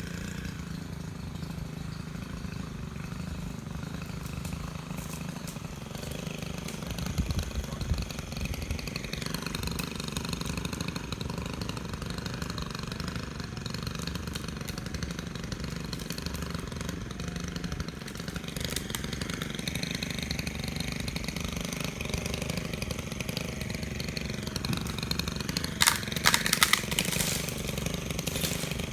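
Chainsaw engine idling steadily, with a few sharp clicks or knocks near the end.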